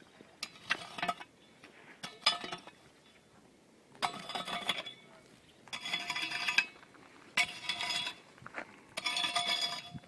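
Metal trail tools scraping and clinking against rocky soil and stones in repeated strokes, about seven over the stretch, each a scraping ring lasting up to a second.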